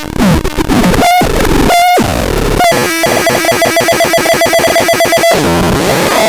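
Electronic synthesizer making harsh, noisy tones. First come short pitched bursts, then from about three seconds a fast pulsing buzz under a steady high tone, which cuts off suddenly a little after five seconds.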